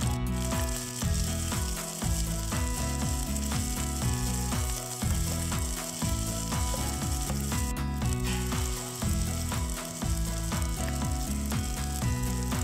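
Fried rice sizzling in a hot frying pan while a spatula stirs and scrapes it, over background music with a steady beat.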